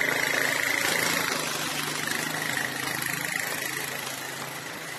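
Motor scooter engine running close by, a steady hum that slowly fades away.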